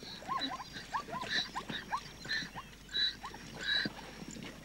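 Wild animal calls: a rapid string of short chirps, with louder, higher calls about five times across a few seconds.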